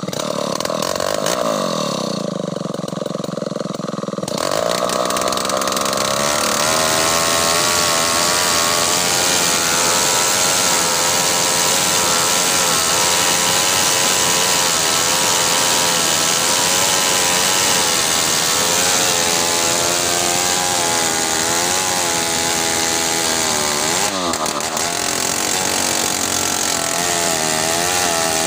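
Two-stroke chainsaw revving, then from about four seconds in running at full throttle as it cuts into a large bengkirai log, its pitch wavering under load. The engine briefly dips and picks up again near the end.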